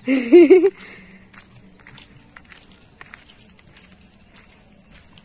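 Insects in the roadside grass and trees trilling in one steady, high, unbroken tone. A short voice sound cuts in during the first second.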